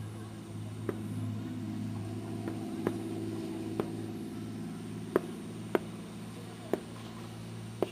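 Distant fireworks going off in sharp, irregular pops, about eight of them. Underneath is a steady low hum and a vehicle engine that swells and then fades.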